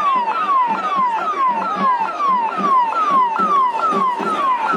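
Electronic siren sounding a rapid repeated falling wail, a little over two sweeps a second, each sweep dropping in pitch and snapping back up, over the din of a large crowd.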